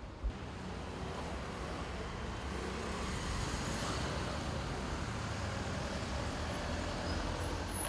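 Steady city road-traffic noise, a hum of passing vehicles, with one brief low thump about a third of a second in.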